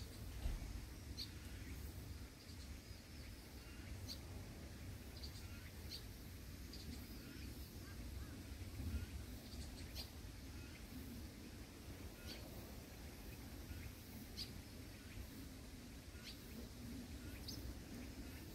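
Faint, short, high bird chirps now and then, roughly one every second or two, over a low steady rumble.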